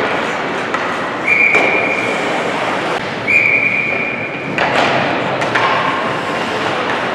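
Ice hockey referee's whistle blown in two long steady blasts of about a second and a half each, over the rink's steady background noise, with a few sharp knocks from play on the ice.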